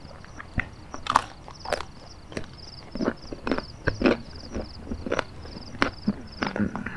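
Eating sounds: a utensil clicking and scraping against a plastic bowl and chewing with lip smacks, in about a dozen irregular sharp clicks. Behind them, insects chirp steadily in short, evenly repeated high trills.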